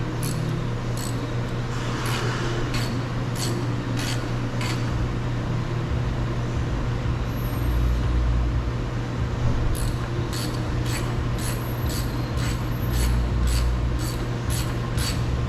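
Socket ratchet clicking in steady runs, about two clicks a second, as a 5 mm screw inside a car door-handle opening is turned out to the left, with a pause in the middle. A steady low hum sits underneath.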